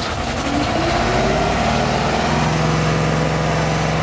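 An engine speeds up, its pitch rising over the first second, then runs steadily at higher revs.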